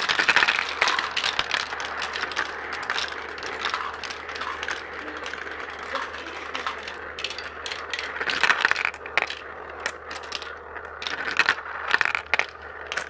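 Marbles rolling and clattering down a large transparent plastic marble run: a continuous rattle of rolling and clicking through the tubes and funnels, with louder bursts of clatter about eight and a half seconds in and near the end.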